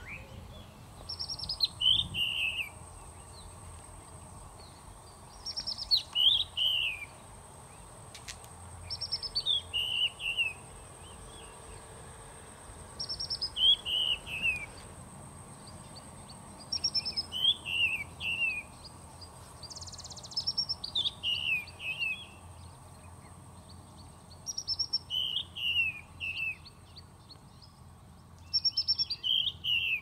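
A songbird singing the same short phrase over and over, a quick run of high notes falling in pitch, repeated about every four seconds.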